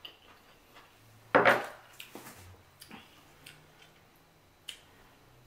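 Table sounds of handling a small glass sauce dish over a wooden cutting board: one short, loud noisy sound about a second and a half in, then a few light clicks of glass and wood.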